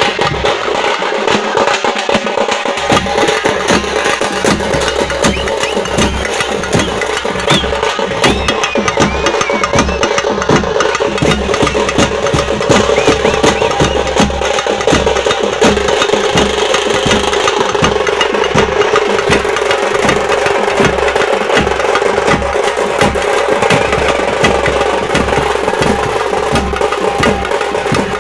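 A group of parai (thappu) frame drums beaten with sticks in a fast, dense dance rhythm.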